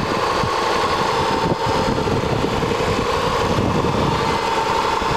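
Rover 75's 2.5-litre KV6 V6 engine idling steadily, heard close up in the engine bay, with a steady whine running over it.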